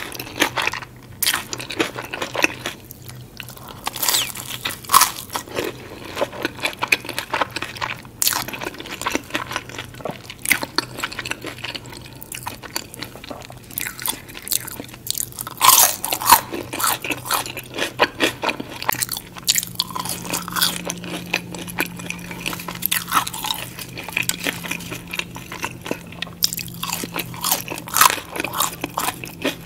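Close-miked eating of crisp battered fried fish and thick-cut chips: a run of irregular crunchy bites with chewing in between, the loudest crunch about sixteen seconds in.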